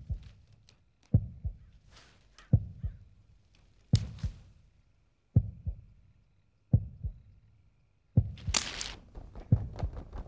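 A slow heartbeat, a double thump repeating about every one and a half seconds. Short rushing hisses come between some beats, with a louder one about eight seconds in, after which the beats come quicker.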